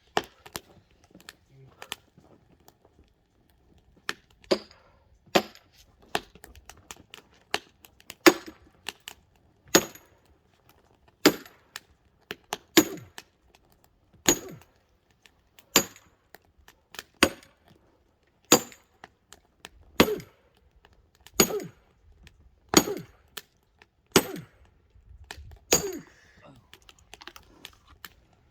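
Axe blows on a very hard firewood log, about fifteen sharp strikes evenly spaced roughly a second and a half apart, each with a short ringing knock; the wood is not splitting yet.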